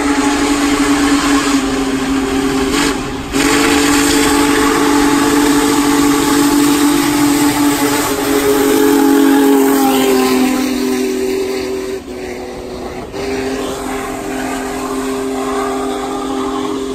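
Union Pacific 4014 Big Boy steam locomotive's chime whistle blowing for a grade crossing in long blasts with short breaks, over the rush of the passing train. The whistle is loudest and its pitch drops as the engine goes by about ten seconds in.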